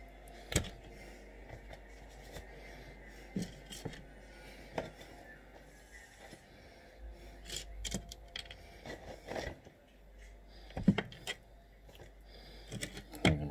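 Scattered clicks, knocks and scrapes of things being handled on a worktop close to the phone, with a few sharper thumps, the loudest about two seconds before the end.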